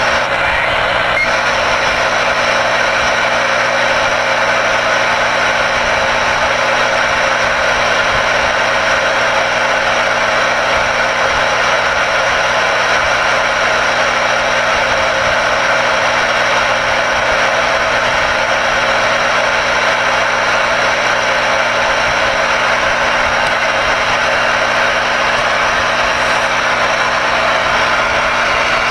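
Radio receiver's speaker putting out steady, loud static hiss with a droning buzz under it, unbroken by any voice.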